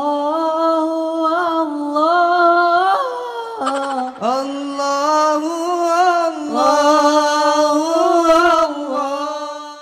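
A solo hadroh vocalist singing a devotional song in a very high key, holding long notes with wavering, ornamented pitch, with a short break in the line about four seconds in.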